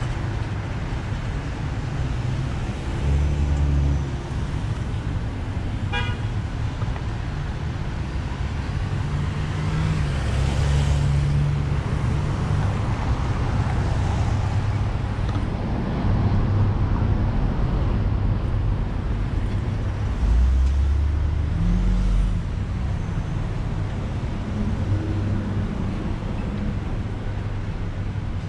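City street traffic: cars driving past, with tyre hiss swelling as one goes by and a steady low rumble underneath. A brief beep sounds about six seconds in.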